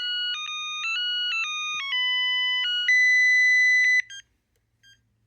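Panasonic KX-TGBA20 cordless phone handset playing an electronic ringtone melody, two notes sounding together as it steps through short notes. It ends on a long held note about four seconds in, followed by a couple of short faint beeps.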